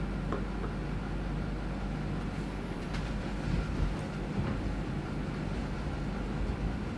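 Steady low background rumble with a faint hum, and a few faint ticks: the first, just after the start, is a stemmed coupe glass set down on the wooden bar counter.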